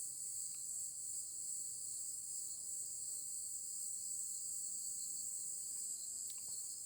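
Steady high-pitched chorus of insects chirring in a forest, with a faint click about six seconds in.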